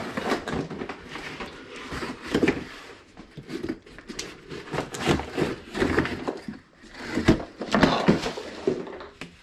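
Cardboard box and plastic packaging being handled and rummaged through: irregular rustling, scraping and knocks as a new gas-tank filler neck and hose are unpacked.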